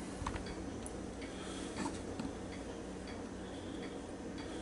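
Quiet room tone with a steady low hum and a few faint, soft clicks, about a second apart near the start and middle.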